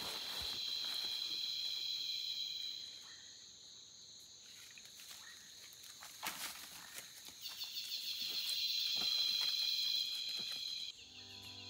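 Rainforest insects buzzing in a high, pulsing drone that dies away about three seconds in and swells back from about seven and a half seconds. Leaf litter rustles sharply about six seconds in. Music comes in near the end.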